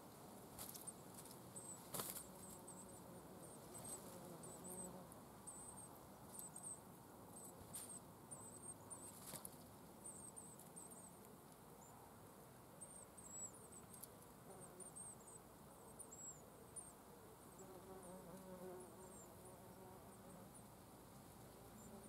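Faint outdoor ambience: many short, very high chirps repeating throughout, with a few soft rustles or clicks, the strongest about two seconds in.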